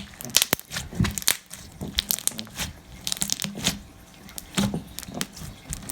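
Elmer's slime with foam beads mixed in, squeezed and kneaded by hand: irregular crunching and crackling, with a few sharper pops among them.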